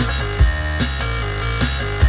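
Electronic synthesizer music played on a keyboard: held bass notes and chords over a steady beat of low drum hits.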